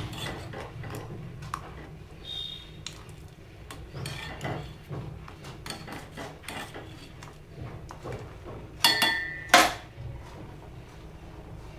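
A metal spoon scraping and clinking against a stainless steel pot while stirring tea. About nine seconds in come two loud, ringing metal clanks close together, from the spoon striking the steel.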